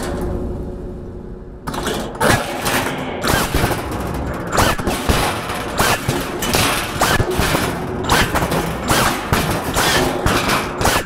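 A rapid, irregular series of loud sharp hits and bangs, starting about a second and a half in and continuing at several a second.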